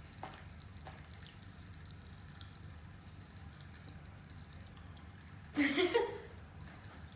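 Mostly quiet room tone with faint scattered clicks. About five and a half seconds in comes a short vocal cry or groan from a person, without words.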